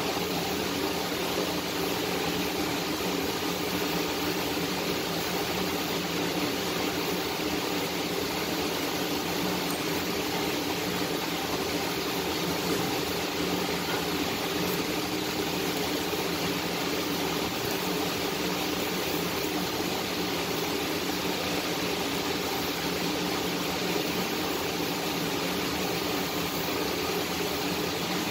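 Gas welding torch flame hissing steadily, with a faint low hum underneath.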